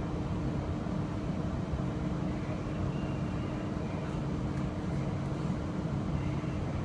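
Queensland Rail IMU electric multiple unit running between stations, heard from inside the carriage: a steady rumble of running noise with a constant hum through it.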